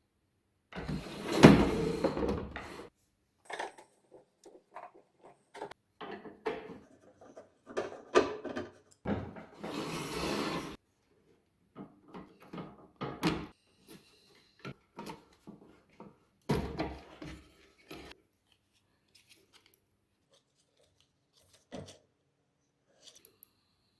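Scraping, rubbing and clicking of microwave oven parts being handled during disassembly, in irregular bursts. The loudest scrape comes about a second in, with more near the middle and around two-thirds through, and only a few faint clicks after that.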